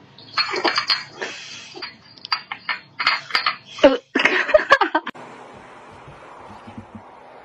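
A person laughing in short bursts, with sharp clicks of a dish and dry kibble knocking on a tile floor as a kitten eats. About five seconds in this stops and gives way to a steady, faint hiss.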